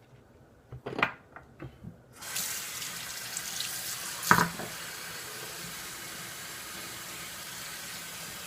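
Tap water running into a sink, turned on about two seconds in and then running steadily. A couple of short knocks come before it, and a louder clink about four seconds in.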